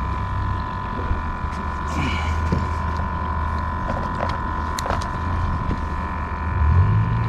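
Steady drone of a boat engine on the water, growing louder near the end, with scattered clicks from a spinning reel and tackle being handled.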